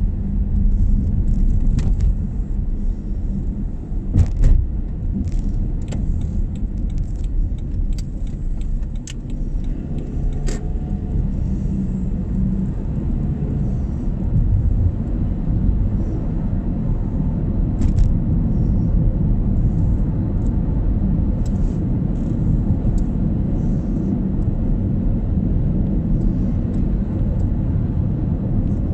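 Steady low road and engine noise heard from inside a moving car's cabin. Light clicks and rattles come and go through roughly the first ten seconds, with one more about eighteen seconds in.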